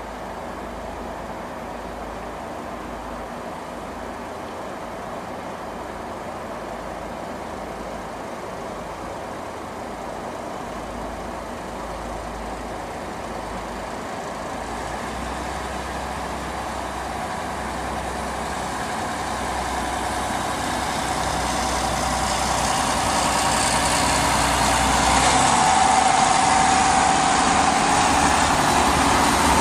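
Diesel multiple unit pulling away from the station and drawing near, its engine running steadily and growing louder as it passes close by. A steady whine comes in strongly near the end.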